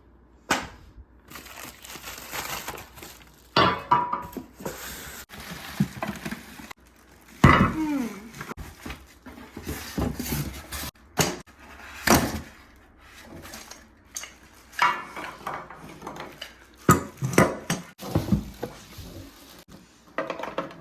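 Meat grinder parts and packaging being handled while unboxed: irregular knocks, clunks and clatters as pieces are taken out and set down, with handling noise between them.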